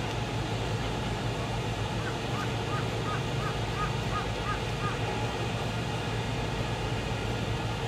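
Steady low hum of the berthed car ferry Silver Queen's engines over harbour noise. About two seconds in, a bird calls in a quick series of short chirps, roughly three a second, for a few seconds.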